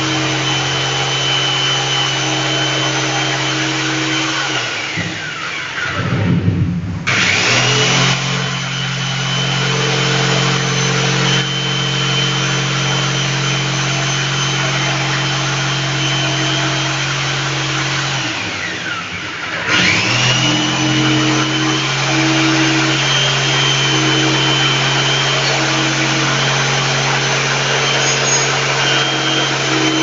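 Electric jigsaw running steadily as it cuts a round speaker hole in an MDF panel. Twice its motor winds down and spins back up to speed: about five seconds in and again near nineteen seconds.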